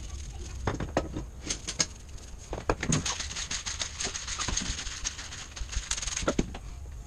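Salt and pepper being shaken and ground by hand over raw meat: an irregular run of light clicks, taps and crackles.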